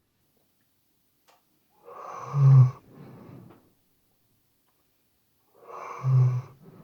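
A sleeping Weimaraner snoring: two snoring breaths about four seconds apart. Each is a noisy in-breath that ends in a loud, low buzz, followed by a quieter out-breath.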